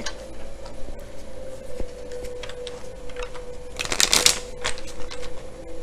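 A deck of oracle cards being shuffled by hand: scattered light card flicks, then a louder, denser burst of shuffling about four seconds in.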